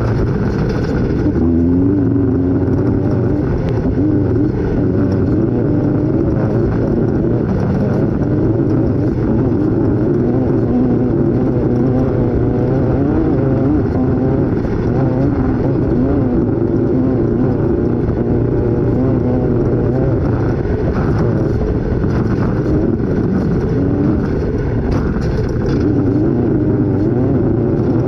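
Off-road race vehicle's engine running hard at race pace, its revs rising and falling continually without a break.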